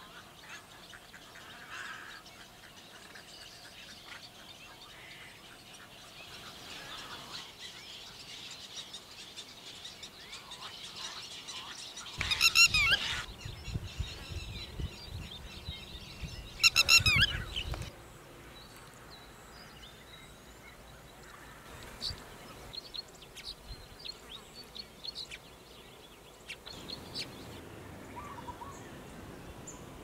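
A nesting colony of egrets, pond herons and baya weavers calling together, which the birder calls a strange noise. It gives way to two loud bouts of shrill, rapidly repeated calls, about twelve and seventeen seconds in, from a red-wattled lapwing. After that there are scattered faint chirps.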